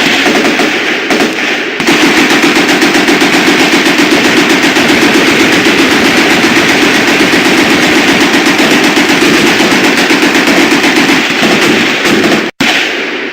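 AK-47 firing fully automatic in a long, rapid, even string of shots, with a short break about two seconds in and an abrupt cut-off shortly before the end.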